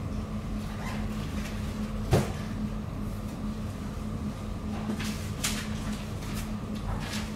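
A sharp click about two seconds in and two fainter clicks later, like hard objects being handled, over a steady low hum.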